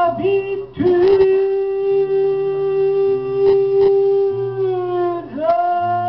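Male singer holding one long sung note for about four seconds, then dipping and settling on another held note near the end, over acoustic guitar accompaniment.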